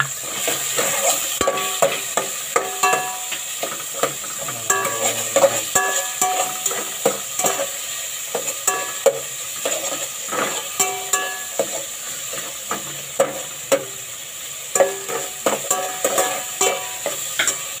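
A utensil stirring and scraping vegetables around an aluminium pot, knocking against its sides at irregular moments so that the pot rings briefly, over a steady sizzle of tomatoes, onions and chilies sautéing in hot oil.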